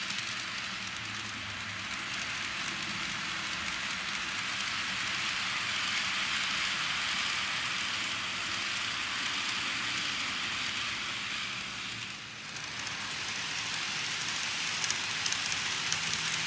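N-gauge model electric trains, a KATO 485 series and a green 103 series, running on the layout: a steady rattle of wheels on the track with a faint motor hum. It dips briefly about twelve seconds in, and quick clicks of wheels over rail joints come through near the end as a train comes close.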